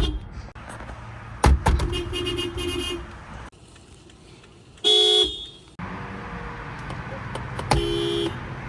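Toyota Prius car horns honking in a string of short clips that cut abruptly from one to the next: a quick run of short taps about a second and a half in, a clear half-second blast about five seconds in, and another short honk near the end.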